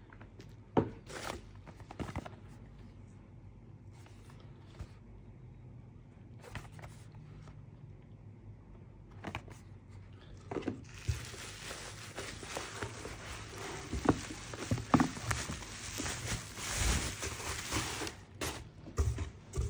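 Packaging being handled: scattered clicks and knocks at first, then from about eleven seconds in a long stretch of rustling and crinkling with sharp crackles, lasting about seven seconds.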